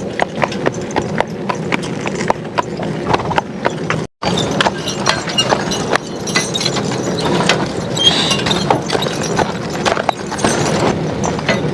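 Hooves of a team of draft horses clopping steadily as they walk, over a continuous rattle and rumble. The sound cuts out for a moment about four seconds in.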